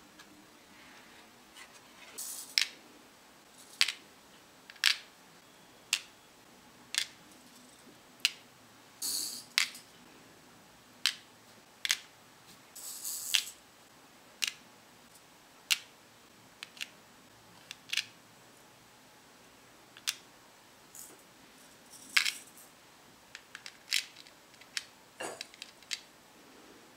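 Small candy-coated chocolate balls clicking one by one into a plastic tray, about one click a second. There are a few short rattling rustles among the clicks.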